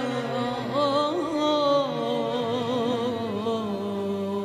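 A woman singing a slow, ornamented Arabic vocal line with wide vibrato, sliding down to a long held low note near the end.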